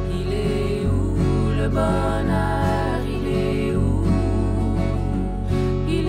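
Background music: an acoustic song led by guitar, with a melody line and no words.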